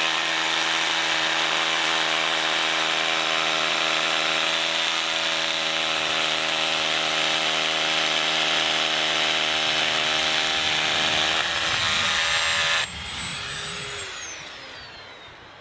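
Makita XRH01 18V brushless SDS-Plus rotary hammer, with its battery-powered DX01 dust extractor attached, hammer-drilling into concrete steadily for about thirteen seconds. The drill then stops, and the dust extractor's motor runs on for a couple of seconds, its whine falling in pitch as it winds down.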